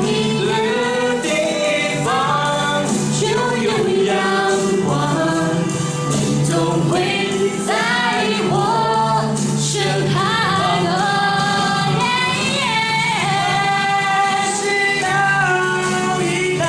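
A choir singing a slow song over musical accompaniment, the voices gliding between held notes.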